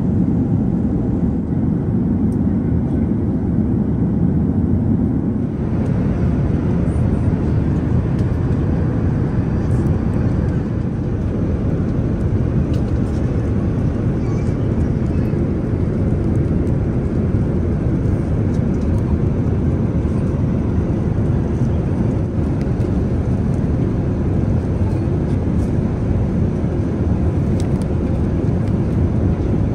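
Steady cabin noise of an Airbus A380 airliner in cruise: engine and airflow noise, heaviest in the low range, with no change in level.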